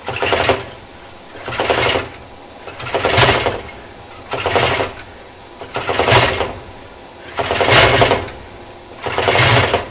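Cold-soaked Rotax 582 two-stroke twin being turned over by hand-propping. Each swing of the propeller gives a short rushing burst, seven in all at about one and a half seconds apart, and the engine does not catch.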